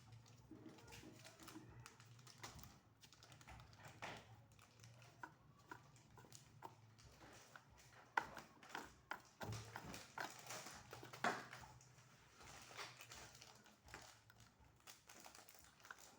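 Irregular light clicks and taps of fan parts being handled while an electric fan is taken apart, most frequent in the middle, with a faint low hum underneath.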